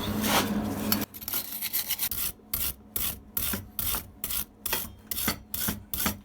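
A steady hiss and hum that stops about a second in, then quick hand scrubbing strokes on the freshly brazed copper-to-stainless joint, about three a second, cleaning off the seam.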